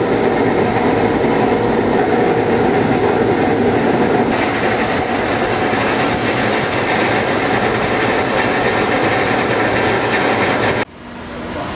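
Steady, loud noise of factory machinery running, which cuts off abruptly near the end, leaving a quieter hum.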